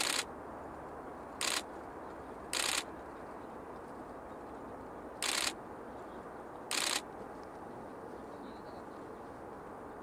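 Camera shutter firing in five short bursts, each a fraction of a second long and irregularly spaced, over a steady low hiss.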